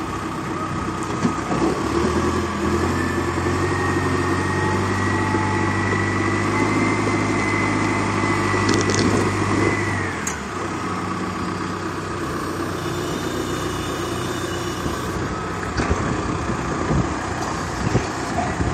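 Rough-terrain forklift's engine running hard with a high whine, then easing back to a lower steady run about ten seconds in.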